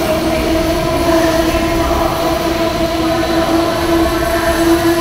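Amtrak Amfleet passenger cars rolling slowly past as the train comes in to stop. A steady squeal sits over the rumble of the wheels.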